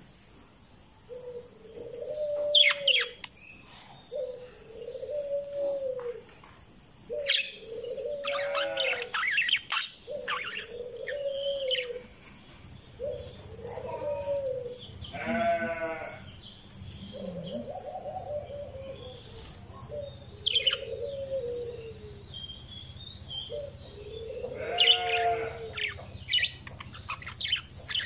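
Parakeets calling in sharp, scattered chirps and harsher squawks, over a lower call that repeats about every two seconds and a steady, pulsing high-pitched buzz.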